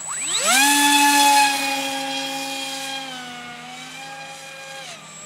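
Electric motor and propeller of a radio-controlled model plane spinning up to full throttle at hand launch in a quickly rising whine, then holding a steady whine that grows fainter as the plane climbs away. The pitch dips about three seconds in and drops again near the end as the throttle is eased.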